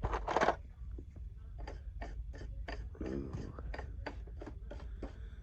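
Brass wire brush scrubbed in short, quick strokes, about four a second, against a small die-cast metal toy car body, clearing off paint softened by stripper.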